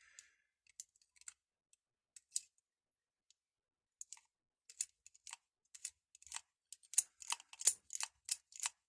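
Metal clicking of a key being worked back and forth in an old rusted, seized padlock, its pins moving but the shackle not releasing. The clicks come sparsely at first, then quicken to a steady run of two or three a second in the last couple of seconds.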